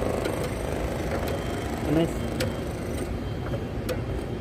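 Foosball table in play: scattered sharp clacks of the plastic players knocking the ball and the rods banging, over steady background noise.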